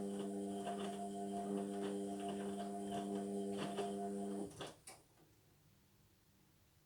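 Indesit washing machine running with a steady hum and soft knocks from inside the drum, which cuts off about four and a half seconds in, followed by a sharp click as the machine pauses.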